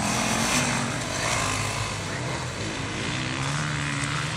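Off-road motorcycle engine running, its pitch rising and falling repeatedly as the throttle is worked.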